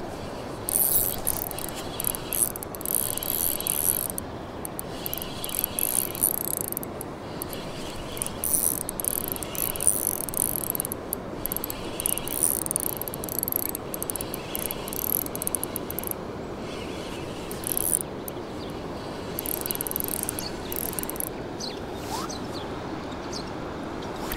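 Spinning reel being cranked to retrieve the line, giving a rapid mechanical clicking in spells of a second or two with short pauses. The clicking stops near the end, leaving a steady outdoor rush.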